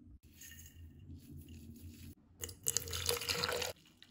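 Coffee poured from a carafe into a mug, a trickling pour. It gets louder from about two and a half seconds in for over a second, then stops.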